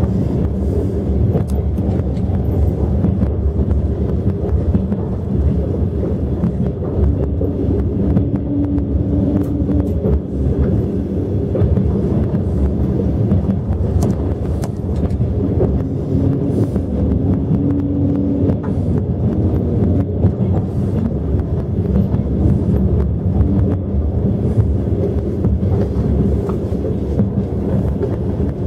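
Passenger train running at speed, heard from inside the carriage: a steady low rumble of wheels on the rails, with a faint hum that comes and goes.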